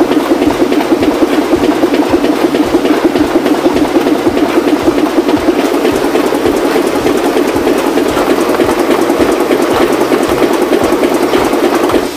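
Printing press running, a loud, steady mechanical clatter with a fast, even rhythm that cuts off abruptly near the end.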